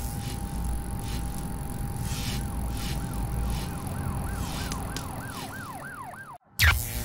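Intro sound effects: a steady electrical buzz with faint crackles, as from a neon sign. From about three seconds in, a siren-like wail sweeps up and down about three times a second and grows louder, then everything cuts off abruptly shortly before the end.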